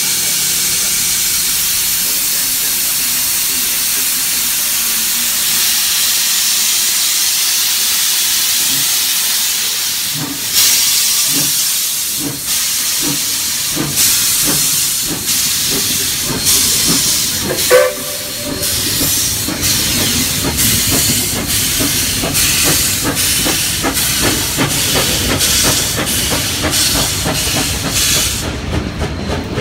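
Steam locomotive hissing steadily as steam blows off. About ten seconds in, its exhaust chuffs begin, slow at first and coming faster as it gets under way. A short high tone sounds about eighteen seconds in.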